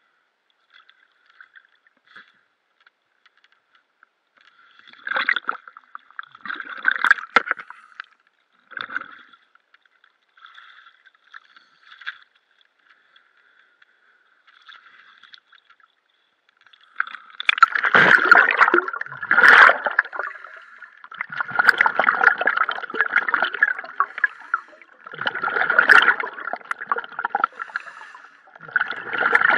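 Water sloshing and gurgling at the surface against a houseboat's pontoon, faint and broken at first, then louder bursts of splashing and bubbling every few seconds through the second half as the diver goes under.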